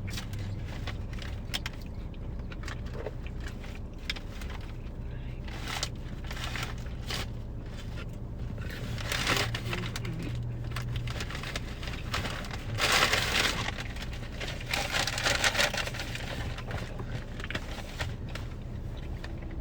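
Close eating sounds: chewing and crunching of fried food, with crinkling of paper packaging, a few louder crunchy bursts in the second half. A steady low hum runs underneath.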